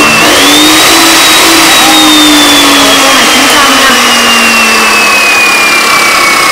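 Metal cut-off saw (abrasive chop saw) started and run: its motor whine climbs in about the first second, then sinks slowly in pitch over a loud, harsh grinding as the disc is loaded in a cut.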